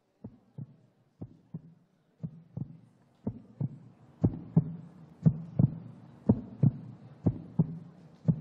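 Heartbeat-style suspense sound effect: paired low thumps, a lub-dub about once a second, growing steadily louder.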